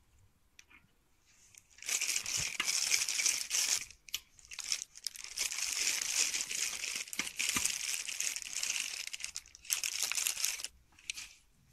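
Vinyl liner of an Intex Prism Frame pool crinkling and rustling as it is handled, in long stretches from about two seconds in until near the end, with a short break about four seconds in.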